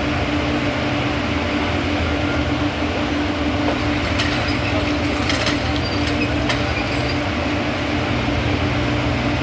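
Heavy rail machinery running with a steady engine drone, and a few sharp metallic clinks about four to six and a half seconds in.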